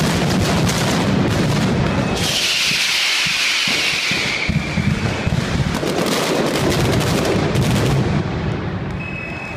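Mascletà firecracker barrage: a dense run of rapid bangs going off without pause, with a loud hiss for about two seconds starting a couple of seconds in. The barrage thins out near the end.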